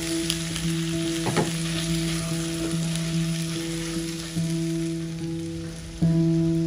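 Pork and potato chunks frying and sizzling in a hot pan as a wooden spatula stirs them, over soft background music with held notes.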